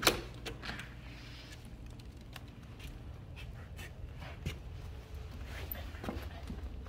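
A sharp click right at the start, then faint scattered ticks and taps of a small dog's claws and paws as it walks from a hard floor onto a pebble-finished step.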